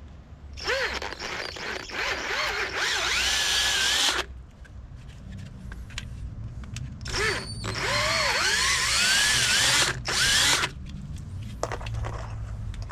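Electric drill running in two long bursts of about three and a half seconds each, with a short one just before the second. The motor's pitch dips and recovers again and again as the bit bites, as when drilling holes.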